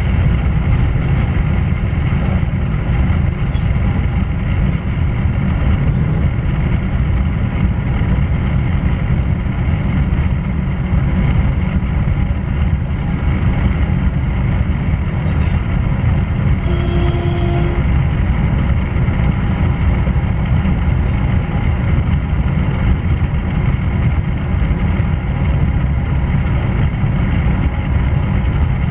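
Pesa Dart ED161 electric multiple unit heard from inside the carriage while running at speed: a steady rumble of wheels on rail with a steady whine from the traction inverters in several fixed tones above it. A short pitched tone sounds once, a little past halfway.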